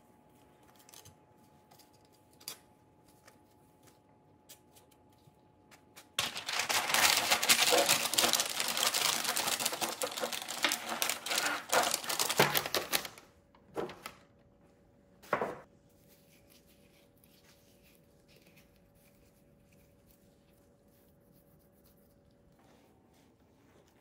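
Parchment paper crinkling and rustling for about seven seconds as it is pressed into a stainless steel adjustable ring mould to line it, after a few light clicks. Two short rustles follow.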